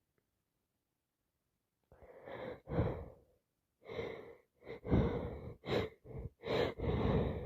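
A person with a heavy cold breathing hard through a congested nose and mouth in a run of about eight short, noisy breaths and sighs, starting about two seconds in.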